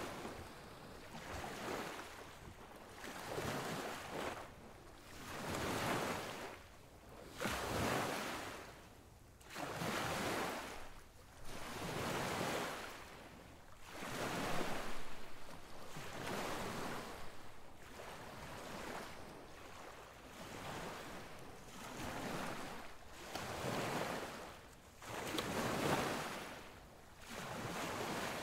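Sea surf washing in, its noise swelling and fading in regular surges about every two seconds.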